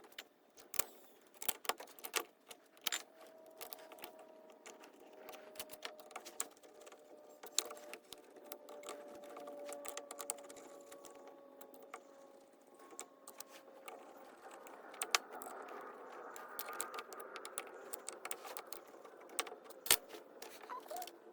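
Small metal carburetor parts and hand tools clicking and tapping as a two-barrel Holley carburetor is reassembled by hand: irregular light clicks throughout, with one sharper knock near the end. A faint hum drifts underneath for several seconds in the middle.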